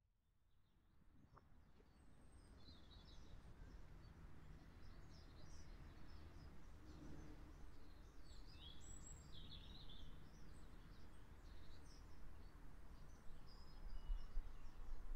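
Woodland ambience fading in over the first couple of seconds: scattered short chirps and calls of small birds over a steady low background rumble.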